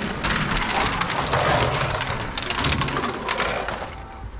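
Two toy race cars built from GUDI plastic bricks rolling fast down a race track: a dense rattling clatter of plastic wheels and bricks on the track, dying away near the end.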